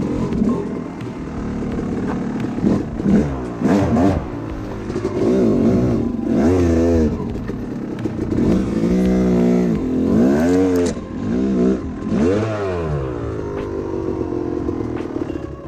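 2007 Yamaha YZ250's two-stroke single-cylinder engine being ridden off-road, revving up and dropping back over and over as the throttle is worked, its pitch rising and falling every second or two.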